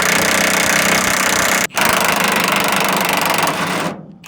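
Impact wrench running on the nuts of the U-bolts that hold a pickup truck's box to its frame, in two long runs split by a brief pause just under two seconds in.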